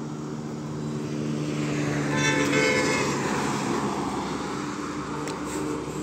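A motor vehicle passing close by on a road, its noise swelling to a peak about two seconds in and then fading, with a brief horn honk at the loudest point.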